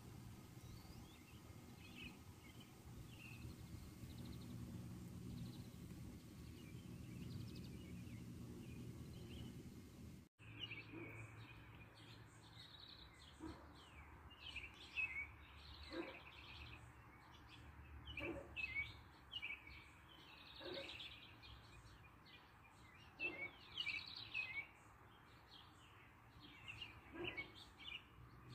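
House sparrows chirping, in quick, irregular runs of short high chirps that come louder and more often after about ten seconds. Before that the chirps are faint over a low, steady background rumble.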